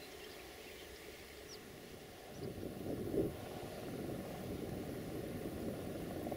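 A low engine rumble from a distant vehicle swells up about two and a half seconds in, with a brief louder surge, then holds steady; faint bird chirps before it.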